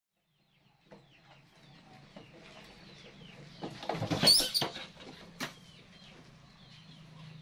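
Small birds chirping in the background over a low steady hum. About four seconds in, a loud brief rushing scrape as a baby monkey slides down a plastic slide, followed about a second later by one sharp click.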